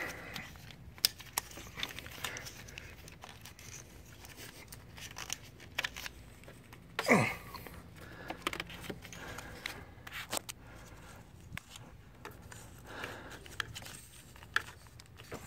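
Small plastic clicks and rattles as the glow plug connector and wiring harness clips are worked loose by hand in a Volkswagen TDI engine bay. About seven seconds in there is one louder, brief falling-pitch vocal sound.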